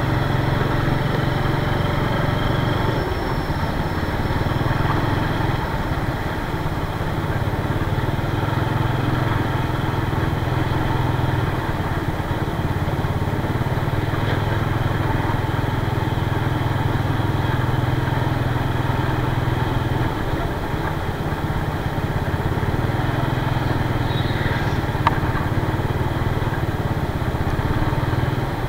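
Motor scooter engine running while riding along a street, a steady low hum that shifts a little with the throttle, with road and wind noise. A brief click near the end.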